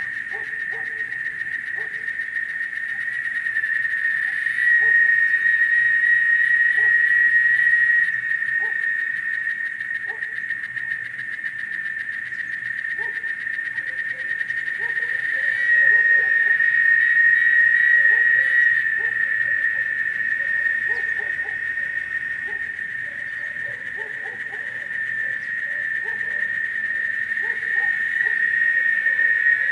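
Cicadas singing in a steady, shrill chorus that swells louder and fades back in long waves.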